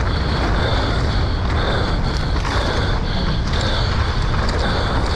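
Mountain bike ridden fast down a muddy race trail, heard from a camera on the rider: steady wind rush and rumbling tyre and trail noise, with the bike rattling and a high buzz that comes and goes.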